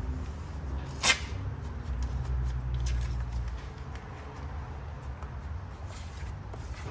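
Work-handling noise over a low steady rumble, with one sharp knock about a second in and a few faint clicks after.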